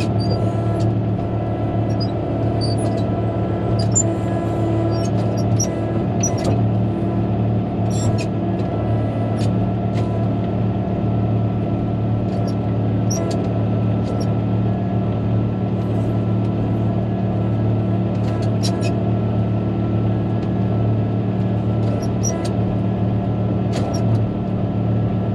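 Caterpillar motor grader's diesel engine running steadily at an even pitch as the machine works along a gravel road, with scattered sharp ticks and rattles on top.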